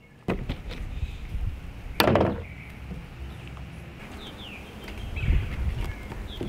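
Handling noise from refitting a spark plug in a Generac iQ3500 generator's engine with a plug tool: one sharp knock about two seconds in, and a low rumble near the end.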